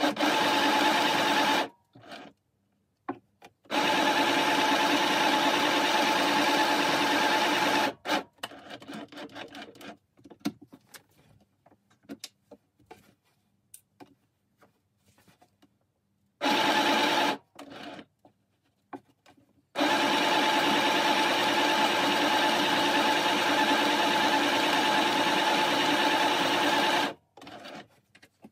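Small electric sewing machine stitching a seam in runs: a short run at the start, a run of about four seconds, a brief one, and a long run of about seven seconds near the end, each with a steady hum and needle clatter. Between runs the machine stops while the fabric is handled, with light rustles and clicks.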